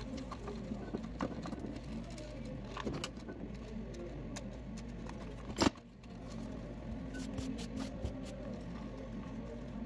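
Scattered light clicks and knocks of hands and a small tool working on a chainsaw's plastic recoil starter housing. One sharp click a little past halfway is the loudest. A steady low hum runs underneath.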